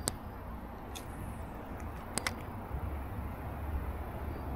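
Steady low outdoor rumble with a few short light clicks: one at the very start, one about a second in, and two close together about two seconds in.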